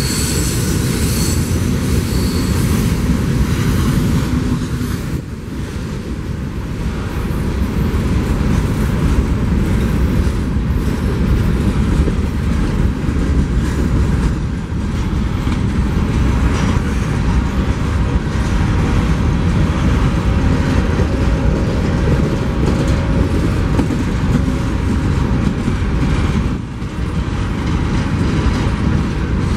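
Freight train rolling past close by: a steady, loud rumble and rattle of wheels on the rails, dipping briefly about five seconds in and again near the end.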